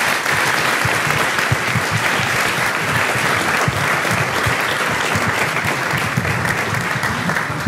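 A banquet audience of about 150 people applauding steadily, a dense, even clapping.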